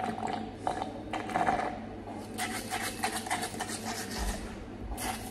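Slurping through a straw at the bottom of a nearly empty glass: a run of short, noisy sucks as the last of the drink is drawn up.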